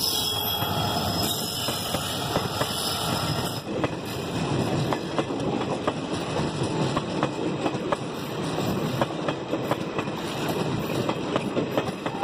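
Diesel-hauled passenger train passing close by, its wheels clattering and clicking over the rail joints. The sound shifts abruptly about three and a half seconds in, after which the sharp wheel clicks come thick and fast.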